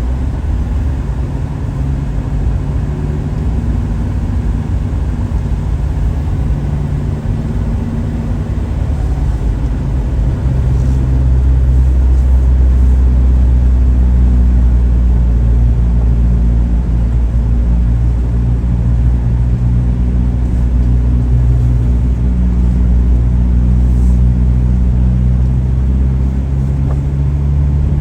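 A motor vehicle's engine running with a steady low drone, getting louder about ten seconds in and staying loud.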